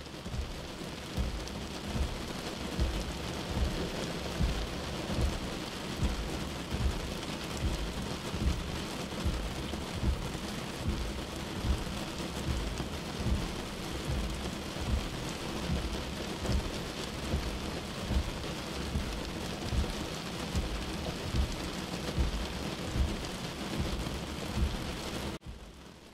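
A steady rain-like hiss under a deep low rumble that swells about once a second. Both cut off suddenly near the end.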